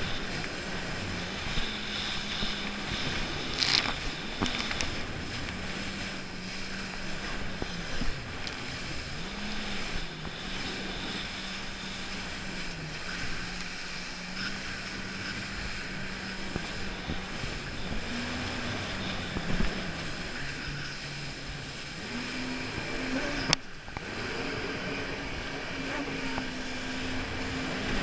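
Jet ski engine running, its pitch rising and falling with the throttle, over the rush of water, with a few sharp knocks from the hull.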